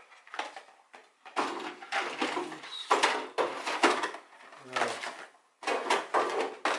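Small cardboard boxes of typewriter ribbon cassettes rummaged through and handled in an aluminium storage tin: irregular rustles, scrapes and knocks, with brief pauses about a second in and near the end.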